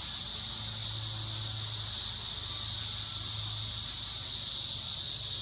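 Chorus of 17-year periodical cicadas: a steady, high-pitched buzzing drone, so loud.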